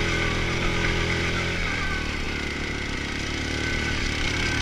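ATV engine running steadily as the quad climbs a loose rocky trail, with the rumble of tyres on gravel.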